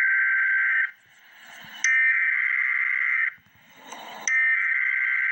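Emergency Alert System SAME header: three bursts of a buzzing two-tone data signal, each about a second and a half long, with about a second of faint hiss between them. The header marks the start of a wind advisory broadcast.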